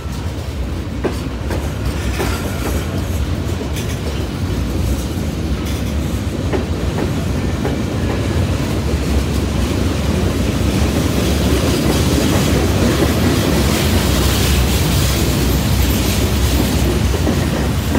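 A freight train of covered hopper cars rolling past at close range: steady rumble of steel wheels on the rail, with a few sharp clicks, growing slightly louder toward the end.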